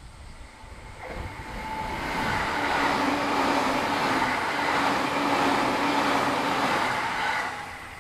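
A train running past: its rail noise builds over the first couple of seconds, stays loud for about five seconds with a faint steady tone under it, then drops away quickly near the end.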